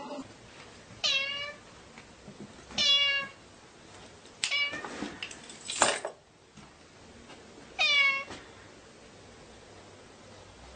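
Domestic cat meowing four times, each meow short and dropping in pitch at its end, with one short harsher noise between the third and fourth meow.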